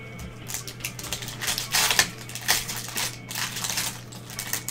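A pack of football trading cards being torn open by hand, its plastic-foil wrapper crinkling and crackling. It is loudest about two seconds in and again a second or so later.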